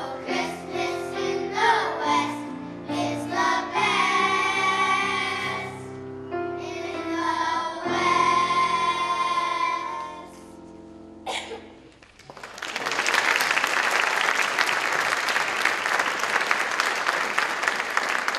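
A children's choir singing a song with instrumental accompaniment. The song ends about eleven seconds in, and audience applause follows.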